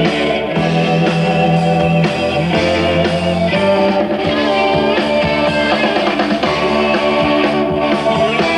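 A rock band playing an instrumental passage, guitar-led over held bass notes that change every second or two.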